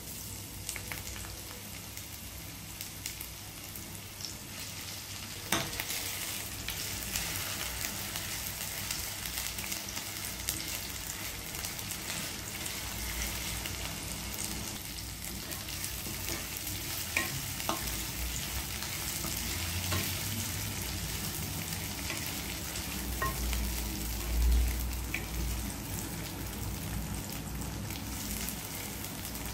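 Sliced onions sizzling as they fry in hot oil in a nonstick wok, with small clicks and scrapes as a wooden spatula stirs them. A sharp click comes about five seconds in, and a short low thump near the end is the loudest sound.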